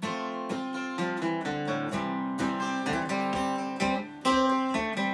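Cutaway acoustic guitar with a capo, strummed in a steady rhythm with the chords ringing: the instrumental intro to a song, before any singing.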